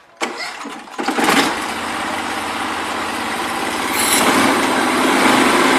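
Small engine starting up and then running steadily, growing a little louder, with a brief higher-pitched burst about four seconds in.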